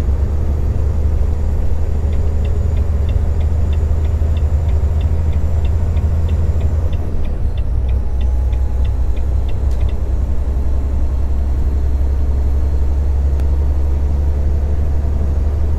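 Steady low rumble of a semi-truck's engine and road noise inside the cab while driving. About two seconds in, a run of quick, even ticks starts, about three a second, and stops about ten seconds in.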